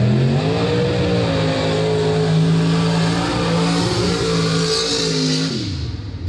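Mud-bog truck's engine revving up hard at launch and held at high revs as the truck runs the pit, then dropping off near the end.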